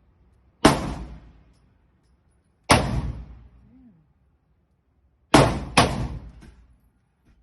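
Four gunshots from a firearm at a shooting range, each followed by a short echoing tail: one, another about two seconds later, then two in quick succession about half a second apart.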